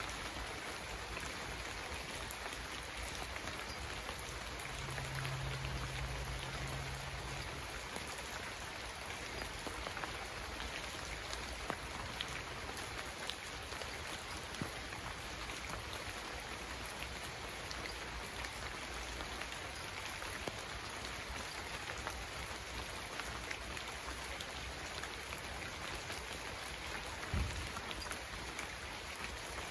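Steady rain falling, with scattered sharp ticks of individual drops. A low hum sounds for a couple of seconds about five seconds in, and a single low thump comes near the end.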